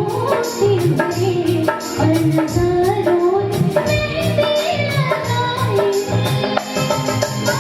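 A song: a young woman's singing voice carries a melody over a steady percussion beat.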